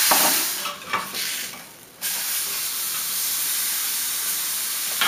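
Venison loin searing in a hot frying pan, sizzling steadily. The sizzle fades for about a second, then comes back abruptly, with a couple of light knocks early on.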